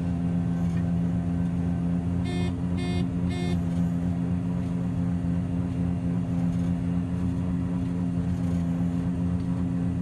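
Combine harvester running, heard from inside the cab: a steady drone of engine and unloading auger as oats pour out into a grain cart. Three short electronic beeps sound about two and a half seconds in.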